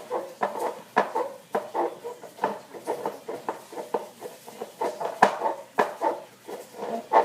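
A cat's food bowl clattering and rattling in quick, irregular knocks, about two or three a second, as the cat paws at it to beg for fresh food.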